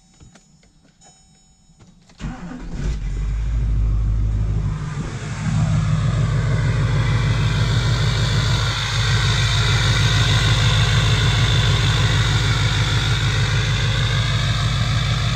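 Chevrolet 2500HD pickup's engine cranking and catching about two seconds in, rising briefly, then settling into a steady idle, heard close to its exhaust outlet.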